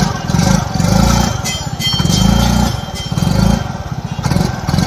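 Yamaha Ray ZR 125 scooter's single-cylinder engine running through its factory Yamaha silencer, heard close to the exhaust. The exhaust note is low and soft and swells and falls about once a second.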